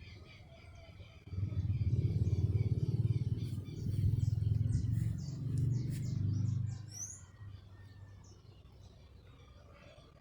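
Small birds chirping and tweeting, with short high calls throughout. A loud low rumble runs from about a second and a half in to about seven seconds in and is louder than the birds.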